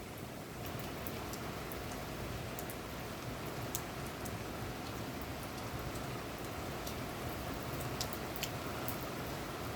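Steady rain falling outside a window, with many scattered sharp taps of single drops striking a surface.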